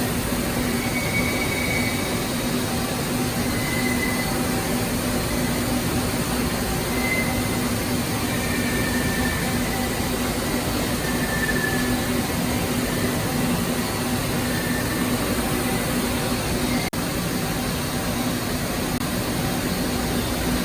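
Okuma Howa 2SP V35 vertical turning lathe running under power: an even machine noise with a steady low hum, unchanging throughout.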